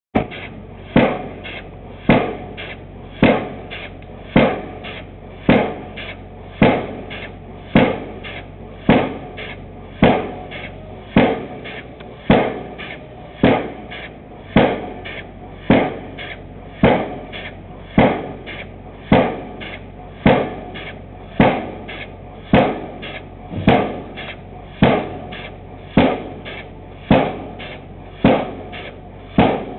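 Vulcan air-powered pile hammer driving a pile, striking in a steady rhythm of heavy blows about once a second, with a softer stroke between blows. A low steady hum runs underneath.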